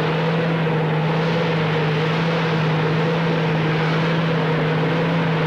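Heavy industrial machinery running: a steady, unchanging drone, a constant low hum over a broad rushing noise.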